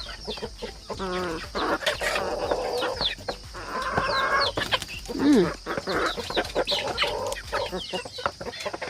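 A flock of chickens clucking and squawking as they squabble over scattered whole corn, with many short clicks among the calls.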